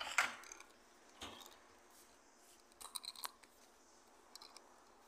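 Short scrapes and clicks of stage lighting gear being handled as a long light bar is lifted and moved. The loudest scrape comes right at the start, another about a second in, then a cluster of clicks near the middle.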